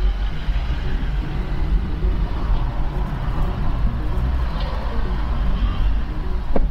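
Car cabin noise of a car pulling slowly forward in a traffic jam: a steady low engine and road rumble, with a short click near the end.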